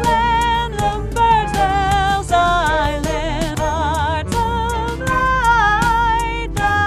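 A song: a singing voice with vibrato over instrumental backing with a steady beat.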